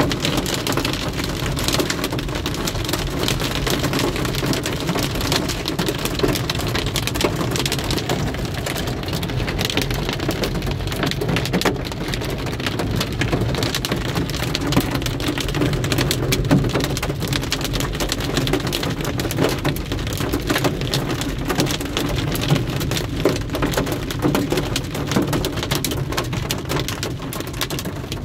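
Heavy rain pelting a moving car's windshield and roof, heard from inside the cabin as a dense, steady patter over a low hum from the car.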